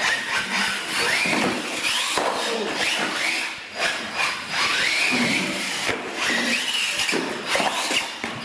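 Radio-controlled monster truck's electric motor whining up and down in pitch about once a second as the throttle is blipped, over the scrabble of its tyres on a concrete floor.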